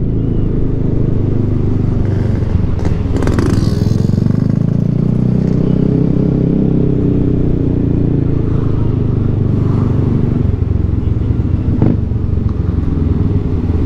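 Yamaha XMAX scooter's engine running while riding, heard from the rider's seat. The pitch rises and falls back as the throttle is opened and eased between about four and seven seconds in, with a brief clatter about twelve seconds in.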